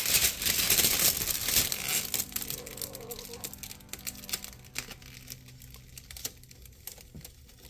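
Clear plastic window film being peeled off a car's side-window glass, crackling and crinkling as it comes away. Dense for the first two seconds, then quieter with scattered crackles.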